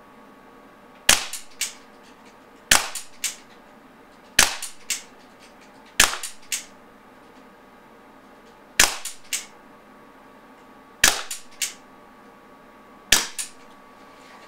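Umarex Walther Nighthawk .177 CO2 pellet pistol firing seven shots about two seconds apart as it empties its magazine. Each shot is a sharp crack followed by one or two fainter clicks.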